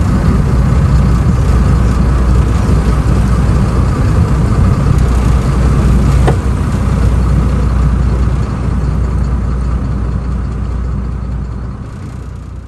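Tour boat's engine running steadily as a loud low rumble, with one faint click about six seconds in; the sound fades out near the end.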